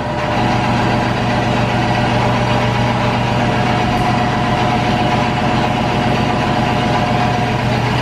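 Milking-system vacuum pump running steadily: a constant, even, engine-like hum.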